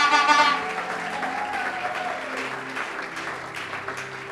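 Church congregation clapping and cheering in acclamation, the applause dying away over a few seconds, with soft held music notes underneath.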